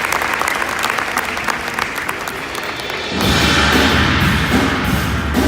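Audience applauding, then about three seconds in a marching band comes in loudly with drums and percussion.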